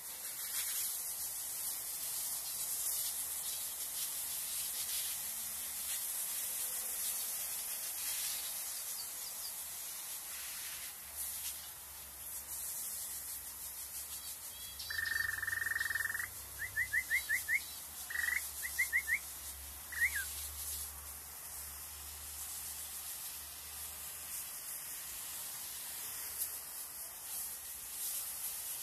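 Steady hiss of a plant-misting system spraying fine mist. About halfway through, a small cage bird calls: one held note of about a second, then a few bursts of quick chirps.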